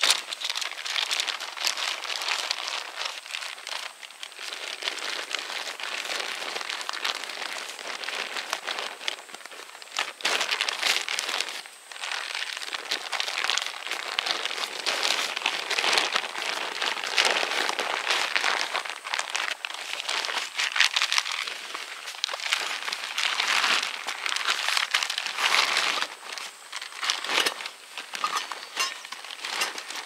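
Sleeping bag being folded and rolled up by hand, its fabric rustling and crinkling in an irregular stream throughout.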